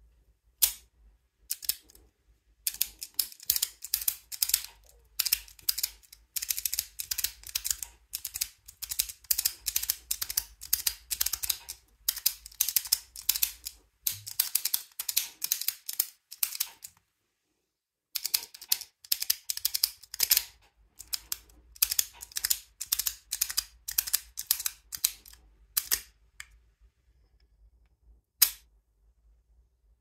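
Dex magnetic padlock being picked in the hands: fast, dense runs of small metallic clicks and rattles from the shackle and body being worked. The clicking breaks off briefly past the middle and thins to a single click near the end.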